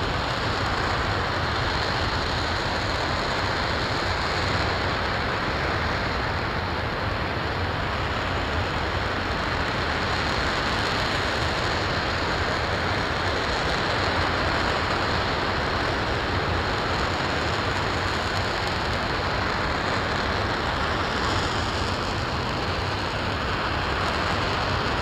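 An RS-25 liquid-hydrogen/liquid-oxygen rocket engine firing steadily on a test stand: a continuous, even, rushing roar with no change in level, late in a 550-second test firing.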